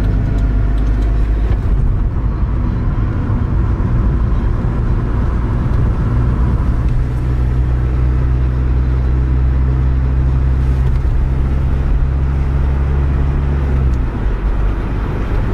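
Steady low drone of a motor vehicle's engine and road noise. Part of the low hum drops away about fourteen seconds in.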